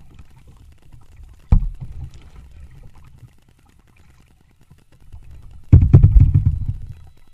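Kayak paddling, heard through the hull of a plastic kayak: a sharp low knock about a second and a half in, then a louder low rumble lasting about a second near the end, from the paddle working and water moving against the hull.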